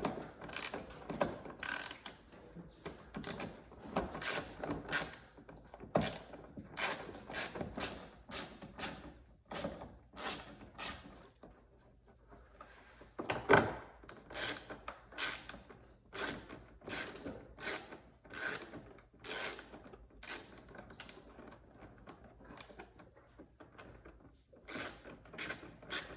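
Ratchet wrench with a 9/32 socket clicking in short runs as it backs out the door-panel screws, with pauses between strokes and one louder knock about halfway through.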